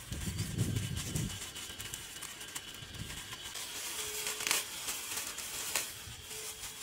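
Dry leaf thatch rustling and crinkling as it is pushed and tucked between wooden poles by hand, with a low rumble in the first second and two sharp crackles later on.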